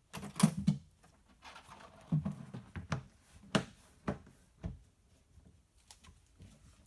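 Hands handling a hollow plastic kayak hull as its sections are fitted together: a flurry of clicks and knocks in the first second, then single knocks about every half second through the middle.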